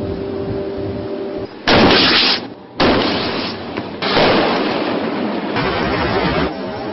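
A shoulder-fired rocket-propelled grenade launcher firing with a loud blast, and a second loud bang about a second later. Then a steady loud noise.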